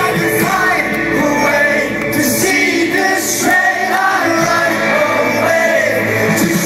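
Rock band playing live, with a male lead singer's voice over the band.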